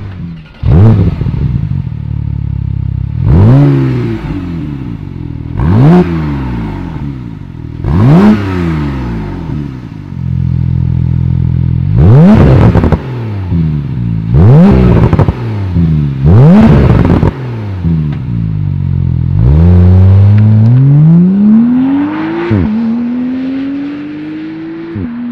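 Porsche 991.2 Carrera 4 GTS's twin-turbo flat-six, with its aftermarket rear silencer's exhaust flaps open, revved about seven times. Each rev shoots up in pitch and falls back, with crackling on the overrun. Near the end the car pulls away hard, the engine note climbing and dropping at upshifts.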